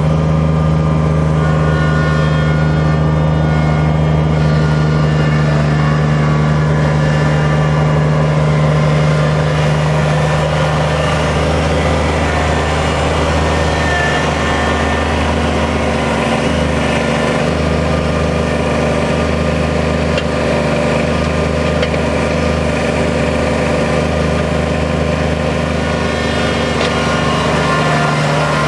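Kubota diesel tractor engine running steadily under work. Its pitch shifts to a different speed about twelve seconds in and returns near the end.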